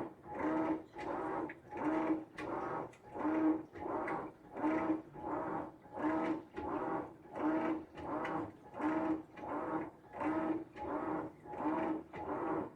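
Whirlpool Xpert top-load washing machine agitating in its express wash cycle: the agitator swings back and forth, giving an even swishing stroke with a motor hum about every two-thirds of a second.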